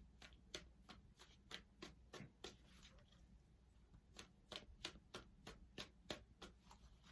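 Tarot cards being shuffled by hand: faint, quick card flicks at about three a second, pausing for about a second partway through, then resuming.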